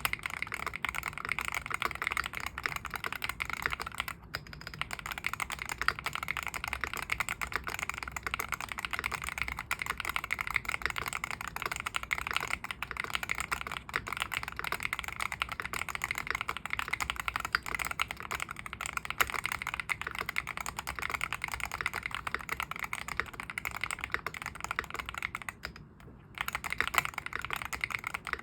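Continuous fast typing on a Venom 60HE, a 60% Hall-effect magnetic-switch keyboard built with a spider O-ring mount. The keys clack steadily, with short pauses about four seconds in and near the end.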